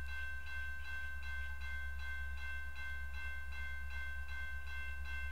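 Electronic railroad crossing bell ringing in rapid, even strokes, about four a second, over a steady low hum: the crossing warning for an approaching train.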